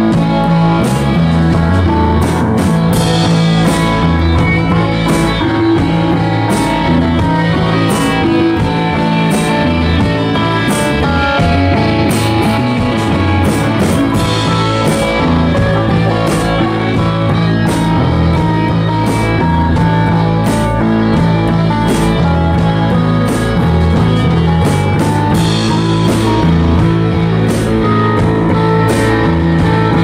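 Live rock band playing an instrumental passage on electric bass, Yamaha keyboard and drum kit, with drum strikes on a steady beat.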